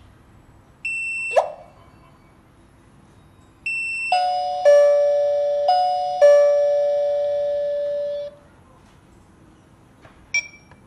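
Alarm-system electronic chime: short high beeps, a knock about a second and a half in, and from about four seconds in a ding-dong chime of several overlapping notes that fades out after about four seconds.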